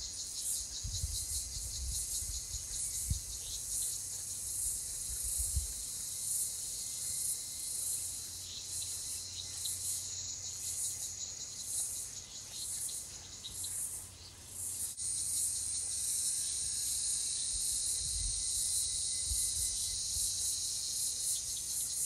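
A chorus of insects making a high, dense buzz that pulses about one and a half times a second, then runs more steadily about fifteen seconds in. Occasional low rumbles can be heard underneath. The kookaburra does not call.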